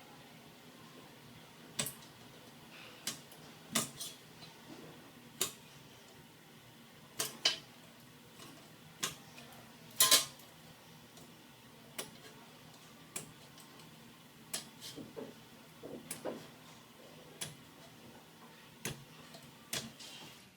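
Light metallic clicks and knocks at irregular intervals as a square and marker are set against and moved along a steel cable tray to mark out lines. The loudest is a double knock about halfway through.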